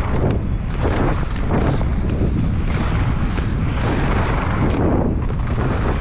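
Heavy wind rumble on the microphone and tyre noise from a mountain bike descending a dirt trail, with scattered small clicks and rattles.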